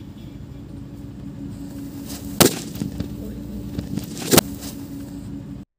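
Two sharp sutli bomb firecracker bangs about two seconds apart, preceded by a building hiss. The sound cuts off abruptly just before the end.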